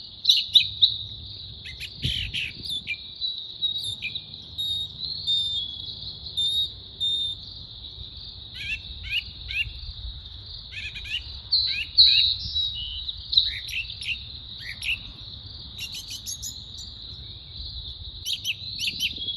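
Songbirds chirping and calling in short, quick phrases, some notes sweeping downward, over a continuous high steady drone of insects.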